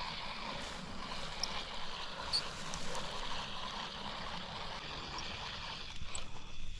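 Steady rush of flowing creek water, with a few faint high chirps on top.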